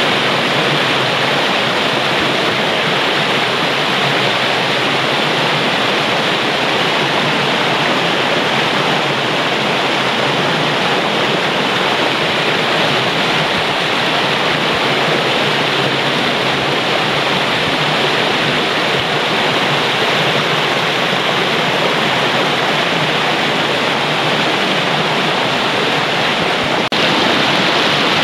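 Mountain stream rushing over rocks in small cascades into a pool: a loud, steady white-water roar.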